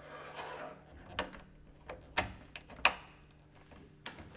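A soft rustle, then four sharp clicks and knocks spread over about three seconds: a wooden window sash and its metal hinge fittings being handled as it is hooked back onto the frame's stoppers.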